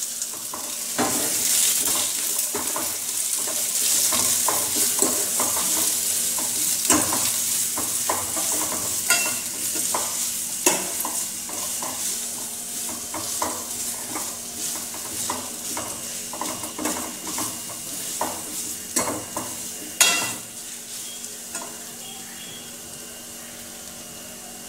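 Sliced onions sizzling in hot oil in a steel pan, stirred with a metal spoon that scrapes and clinks against the pan. The sizzle is strongest at first and dies down over the second half, with one sharp clink about twenty seconds in.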